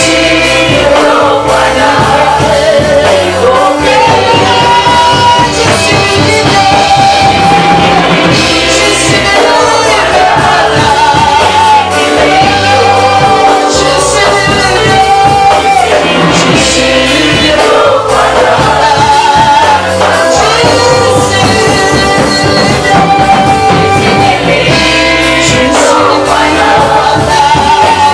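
Live gospel worship music: singers with a band, amplified and loud, with a steady beat.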